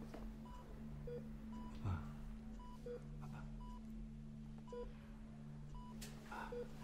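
Hospital bedside patient monitor beeping steadily: a short higher beep about once a second and a lower beep every two seconds or so, over a steady low hum. A dull thump about two seconds in.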